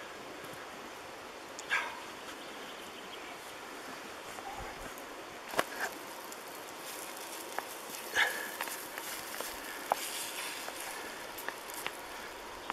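A spatula clicking and scraping in a small frying pan as chopped vegetables are stirred over campfire embers. A dog gives two short barks in the background, about two seconds in and again past the middle, the second the loudest sound here.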